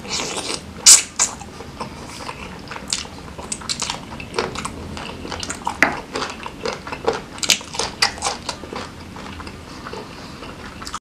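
Close-miked chewing of sambal-smothered grilled chicken: wet smacking and clicking mouth sounds, with a sharp loud click about a second in.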